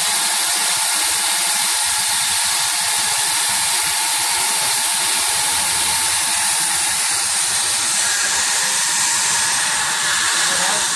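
Hightex S700 hot-air tape welding machine running: a steady hiss of hot air blowing from its nozzle, with a faint machine hum underneath.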